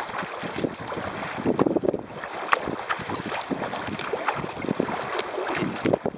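Choppy lake water splashing and slapping against a sailing kayak's hull as it runs downwind, with wind buffeting the microphone. There is an irregular run of splashes and a sharp tick about two and a half seconds in.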